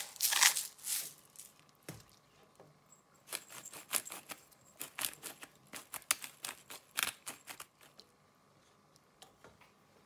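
Hand-held spice grinders being twisted over the pan, first salt and then black peppercorns: crunchy grinding clicks in the first second, then a longer run of rapid clicks from about three seconds in until nearly eight seconds.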